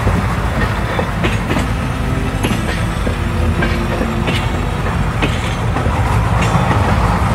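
Train rolling along the track: a steady low rumble with scattered clacks of the wheels over rail joints.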